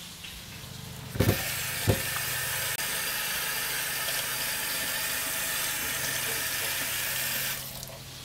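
Flour-dredged snapping turtle pieces frying in hot oil in an enamel roaster, a loud steady sizzle that comes up about a second in and falls away near the end. Two thumps come just as the sizzle rises.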